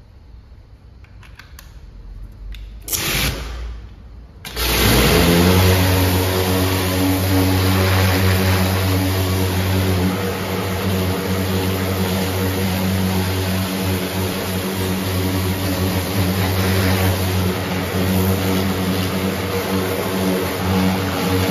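Pressure washer kicking on after a short first burst, then running steadily with a hum while its jet of water hisses against the car's wheel and tyre.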